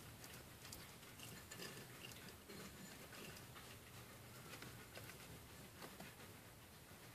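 Faint, scattered small clicks and rustling of pet African pygmy hedgehogs feeding from their bowl and shuffling in wood-shaving bedding.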